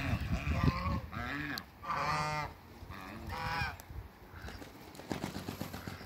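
Domestic geese honking: a run of about four calls in the first four seconds, the loudest about two seconds in.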